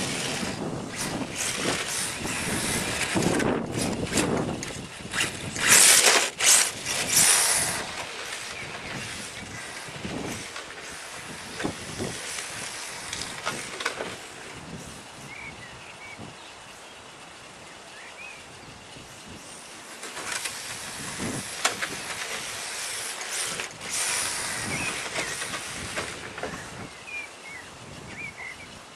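HPI Sprint 2 radio-controlled drift car's Falken drift tyres hissing as they slide across rough asphalt, coming and going in bursts as the car drifts past, loudest about six to seven seconds in, with a quieter stretch in the middle.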